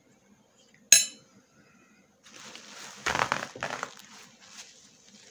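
A single sharp clink of a fork against a plate about a second in, ringing briefly. It is followed by a few seconds of rustling with two louder scuffs.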